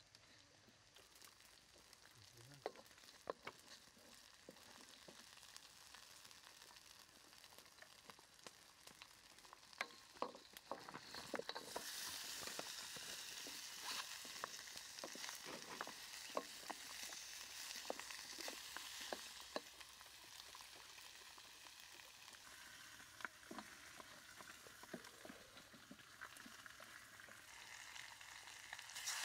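Garlic and chili frying in oil in a wok, with a wooden spoon scraping and clicking against the pan. About twelve seconds in, raw chicken pieces go into the hot oil and the sizzling gets louder, then eases off.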